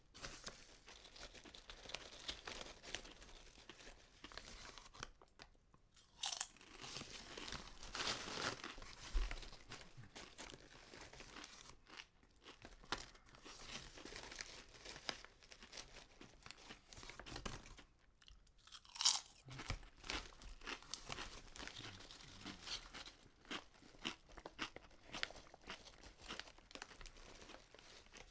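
Potato chips being bitten and chewed, with continuous irregular crunching. A few louder bites stand out, around six to nine seconds in and again about two-thirds of the way through.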